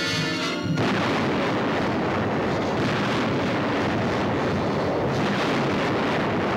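Orchestral music cut off about a second in by a sudden explosion, followed by a dense, steady rush of blast noise and falling rock.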